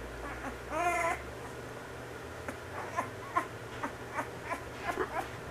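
Sheepadoodle puppy whining and whimpering: one longer cry about a second in, then a run of short, high squeaks.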